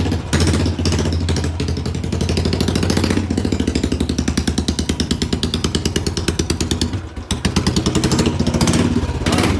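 Royal Enfield Bullet single-cylinder engine running with its silencer removed, a loud rapid train of exhaust beats from the open pipe. The beat slackens briefly about seven seconds in, then comes back loud again.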